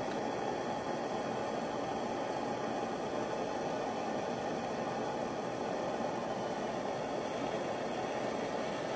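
Handheld butane torch flame burning with a steady rushing hiss as it heats the metal forge of a rosin press.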